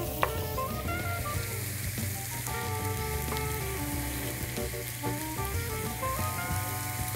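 Food sizzling and frying in hot pans: mushrooms reducing in white wine in a skillet, then strip loin steaks on a grill pan, under soft background music. A single sharp tap just after the start.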